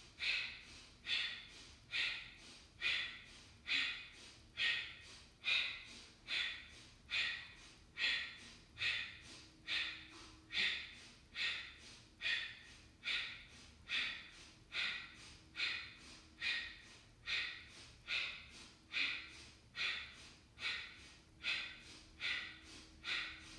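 Kapalabhati breathing: a woman's short, forceful exhales through the nose, each driven by a snap of the diaphragm, repeating in an even rhythm of about one puff a second.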